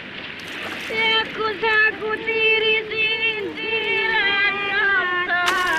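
A woman's voice singing unaccompanied, a slow traditional folk song of long held high notes with wavering ornaments, starting about a second in over the rushing wash of surf.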